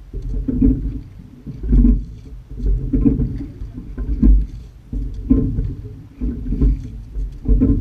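Rowing shell under way, sculled with two oars: low water and wind rumble on a hull-mounted microphone, swelling and fading in regular surges a little more than once a second with the stroke.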